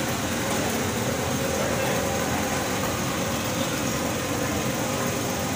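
Steady background din with a faint steady hum, from electric pedestal fans running in a roti kitchen; no distinct knocks or voices stand out.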